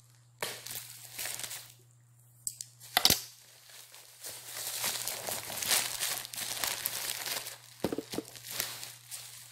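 Plastic packaging being cut and torn open by hand, with irregular crinkling and rustling of the plastic wrap; a sharp click about three seconds in and two more near the end.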